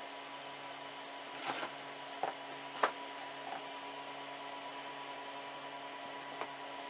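Faint steady hum of a FlashForge Creator 3D printer's fans, with several light clicks and taps, the loudest about three seconds in, as a small crate printed in wood-fill filament is handled.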